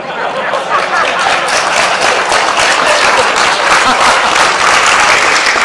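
Audience applauding in a large hall, swelling within the first second and then holding steady.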